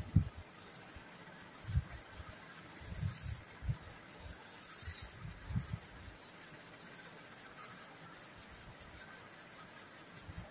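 Quiet sounds of eating by hand from steel plates: soft rubbing, with a few short low knocks in the first half.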